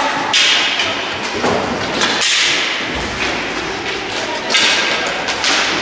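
Roller hockey play: quad skate wheels rolling and scraping on the rink floor, with repeated thuds and knocks of sticks and ball, in a large sports hall. Surges of scraping hiss come about a third of a second in, around two seconds in and again past four seconds.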